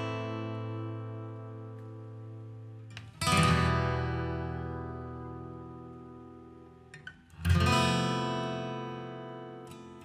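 Background music: acoustic guitar chords, each strummed once and left to ring and fade, with a new chord a little after three seconds and another at about seven and a half seconds.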